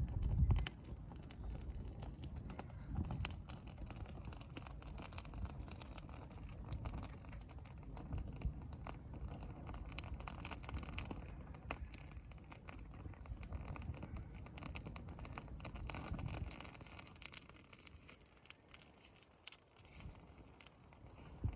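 Burning straw and dry leaves crackling, with many quick irregular snaps and pops over a low rumble that swells and fades, loudest at the very start and again about three-quarters through.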